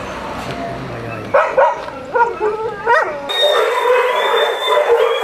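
Several shelter dogs barking and whining at once, starting about a second in. Their short calls and longer drawn-out whines overlap and grow denser.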